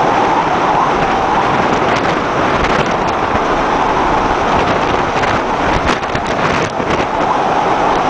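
Storm wind and heavy seas around a large tanker: a loud, steady rush of noise, with a few short crackles between about five and a half and seven seconds in.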